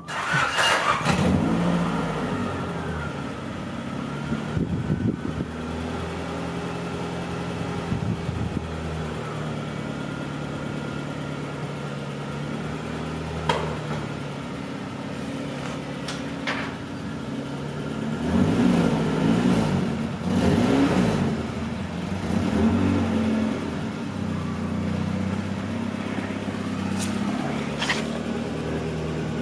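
Honda Civic hatchback's engine running, with a few revs about two thirds of the way through and a few sharp clicks.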